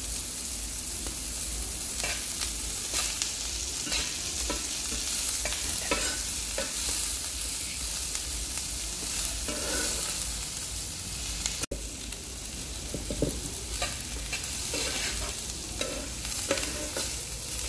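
Chopped onion, garlic and green chillies sizzling in oil in an iron pan, with a metal spatula scraping and stirring them through the pan at intervals.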